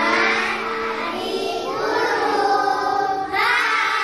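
A group of young children singing together, holding long notes that shift in pitch.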